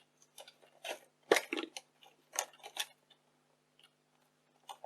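A run of sharp plastic clicks and knocks from handling a Yashica Video 8 camcorder and working its switches, the loudest about a second in, with a few more near the end, over a faint steady hum.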